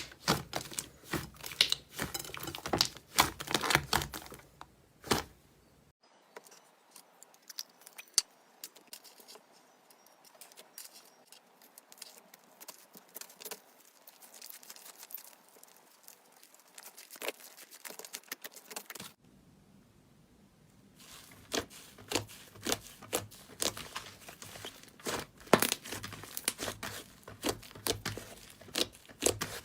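Slime being squeezed and stretched by hand, with dense sharp crackling and popping clicks as trapped air bursts. The crackling falls to a much softer, quieter squish for a long stretch in the middle, then returns.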